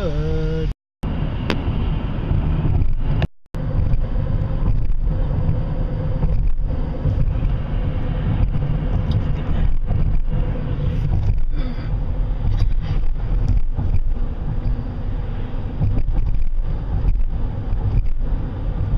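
Steady road and engine rumble of a car driving, heard from inside, broken by two brief cuts to silence about a second in and again about three and a half seconds in.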